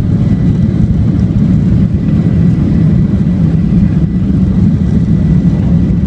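Boeing 737-800's CFM56-7B jet engines at high take-off thrust, heard inside the passenger cabin as a loud, steady, deep rumble with a faint steady high whine.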